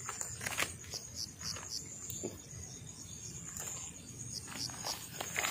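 Night insects keeping up a steady high-pitched trill, with short chirps repeating a few times a second. Scattered light clicks and knocks of handling sound close by.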